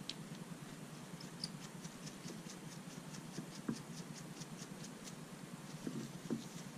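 A metal ballpoint pen being screwed back together by hand: a faint run of quick, light ticks, about five a second.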